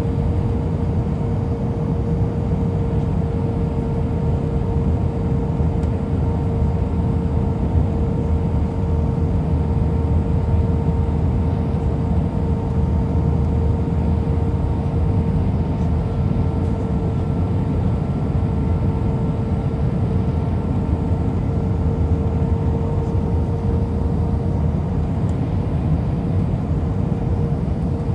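Steady cabin noise inside an Airbus A319-112: the even rush of its CFM56 engines and airflow, with a constant hum running through it.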